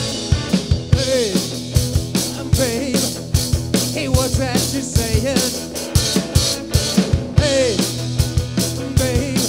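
Live rock trio playing loud: an electric guitar plays a lead line full of string bends over a driving drum kit and bass guitar.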